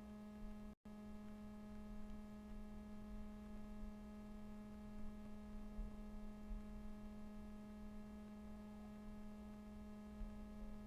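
Faint steady electrical hum with a low rumble beneath it, cutting out completely for an instant about a second in.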